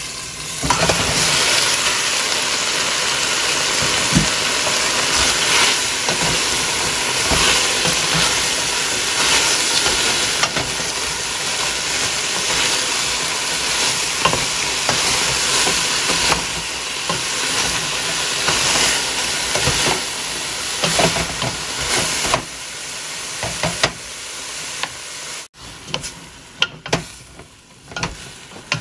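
Broccoli florets sizzling loudly in hot oil in a stainless steel wok as they are added and tossed with a wooden spoon. The sizzle surges about half a second in and dies down near the end, leaving the spoon's scrapes and knocks against the pan.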